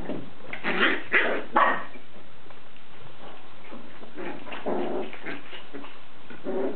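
Havanese and miniature poodle puppies play-fighting, giving short barks and yips: a quick run of several in the first two seconds, then more a few seconds later and again near the end. This rough play is how puppies learn bite inhibition.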